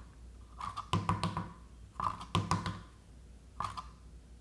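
Handling taps and knocks as a rubber ball and a 3D-printed plastic tube are moved against each other on a tabletop, in three short clusters of clicks.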